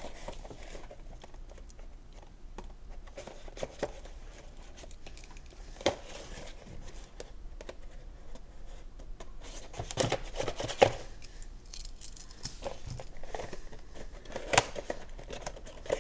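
Cardboard action-figure box being handled and opened at its end flap: scattered scrapes, light clicks and taps of thin card as the seal is picked at with a thin tool. A few sharper handling knocks stand out about ten, eleven and fourteen and a half seconds in.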